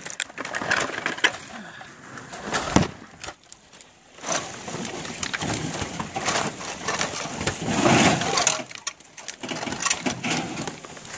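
Irregular rustling and crunching of footsteps and bodies pushing through dense forest undergrowth and brush, in uneven swells.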